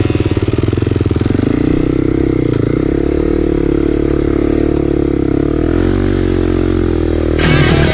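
Off-road motorcycle engine running at a steady speed, its pitch wavering slightly. Music cuts back in near the end.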